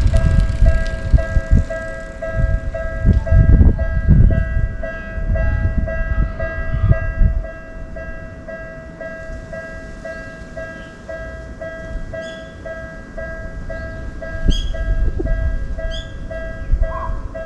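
Japanese railroad crossing warning bell ringing steadily at about two strokes a second. A train rumbles past during the first seven seconds or so, then fades.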